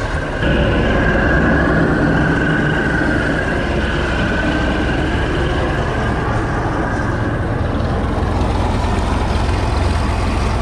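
MerCruiser 3.0 L four-cylinder marine engine idling steadily on a test run, its cracked exhaust manifold sealed from outside with flexible gasket maker and holding without leaks.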